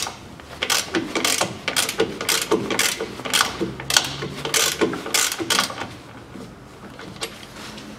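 Socket ratchet wrench clicking in short strokes, about two a second, as a rear differential plug is backed out. The ratcheting stops about six seconds in.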